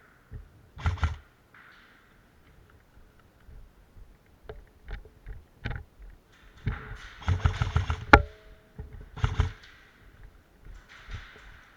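Movement and handling noise: irregular rustles and thumps with a low rumble, a few light clicks, and one sharp crack with a brief ring about eight seconds in.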